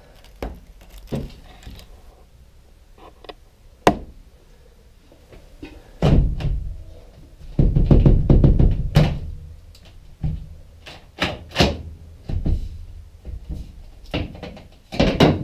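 Knocks and heavy thumps as the side window glass of a 1970 VW bus is pushed and pulled in its rubber seal with a suction-cup lifter, the loudest thumping about six seconds in and again from about eight to nine and a half seconds, with sharper single knocks around it.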